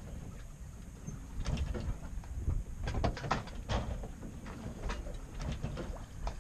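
Sailboat under way: a steady low rumble of wind and sea, with repeated creaks and clicks from the boat's fittings, several bunched about three seconds in.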